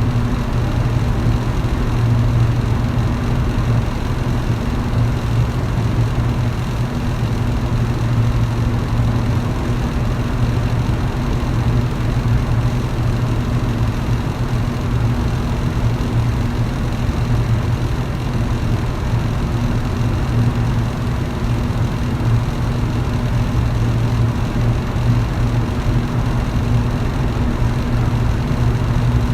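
Electric fan running steadily: a low, constant motor hum under an even rush of air.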